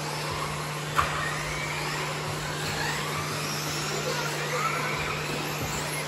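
Several 1/10-scale electric off-road RC buggies racing, their motor whines rising and falling as they speed up and slow down, over a steady low hum. A sharp knock sounds about a second in.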